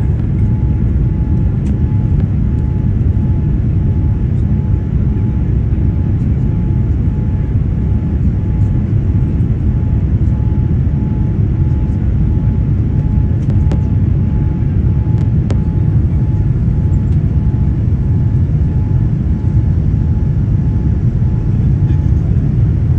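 Jet airliner cabin noise during the climb after takeoff: a steady low rumble of engines and rushing air, with a faint steady whine above it.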